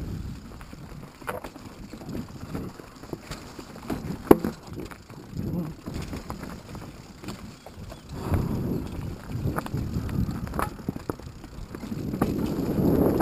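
Mountain bike rolling down a rocky singletrack, rattling over stones with irregular sharp clicks and knocks, the loudest about four seconds in. Wind on the microphone swells and fades.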